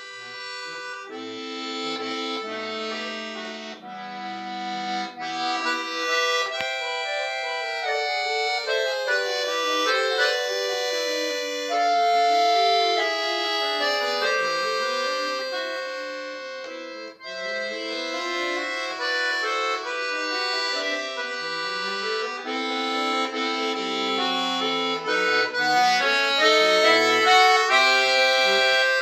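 Solo button accordion playing: fast rising and falling runs of notes over held chords, starting soft and growing louder toward the end, with a brief break about seventeen seconds in.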